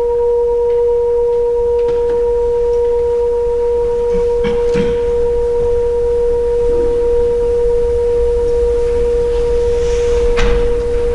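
Singing bowl sounding one steady, sustained tone, with a fainter higher overtone that fades out near the end.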